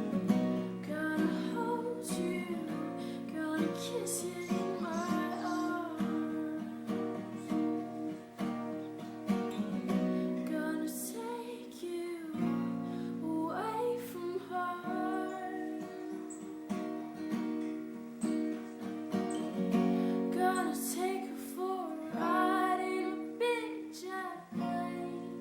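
Background music: a song with strummed acoustic guitar and a female voice singing.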